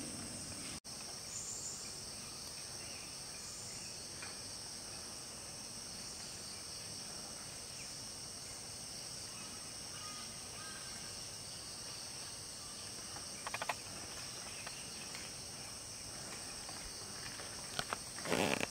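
Steady high-pitched chorus of insects, an unbroken shrill drone. A few short crackling, clicking bursts cut through it about two-thirds of the way in and again, louder, near the end.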